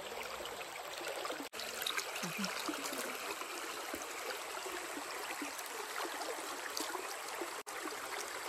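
River water flowing steadily, a continuous even rush of running water, with two momentary breaks.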